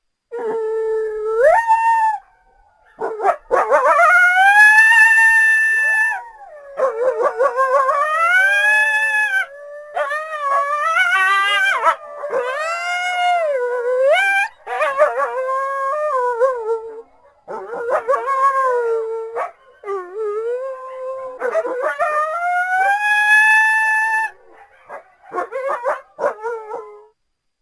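Wolves howling: long howls that rise and fall in pitch, several overlapping at times, with short breaks between them.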